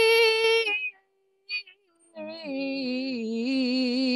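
A woman reciting the Qur'an in melodic tilawah style into a microphone. A long held note ends under a second in, a short pause follows, and about two seconds in a new long, wavering, ornamented line begins.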